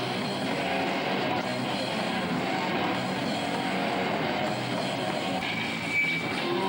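Live rock band playing loud, dense music, with a held high guitar tone near the end.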